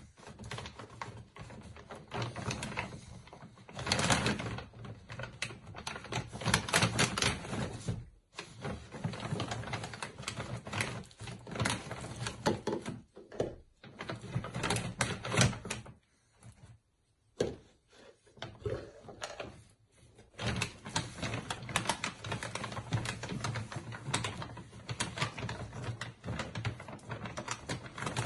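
A basset hound rooting with its head inside a plastic bag, the bag crinkling and rustling in rapid irregular clicks, with short pauses now and then as the dog stops moving.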